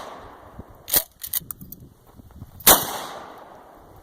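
Pump-action shotgun firing: one loud blast about two and a half seconds in, with a long echoing tail. About a second in there is a sharper crack followed by a few quick clicks, and the tail of an earlier shot is fading at the start.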